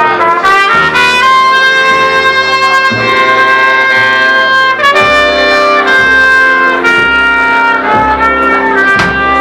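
Live band music: a loud lead melody climbs in a quick rising run over the first second, then plays long held notes over bass and drum hits.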